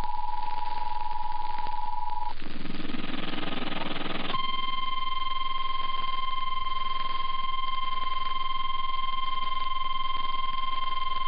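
Emergency Alert System two-tone attention signal, cutting off about two seconds in. About two seconds of noisy static follow, then a single steady 1050 Hz warning alarm tone of the kind NOAA Weather Radio sends before a warning, all over a constant radio hiss.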